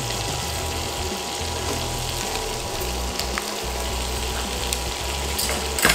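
Butter sizzling steadily as it melts and foams in a hot non-stick frying pan, an even hiss, with a couple of light clicks near the end.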